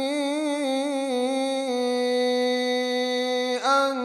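A male Quran reciter's voice holding one long chanted note in melodic tajweed style. The pitch wavers with ornaments for the first second and a half, then holds steady, with a brief break near the end.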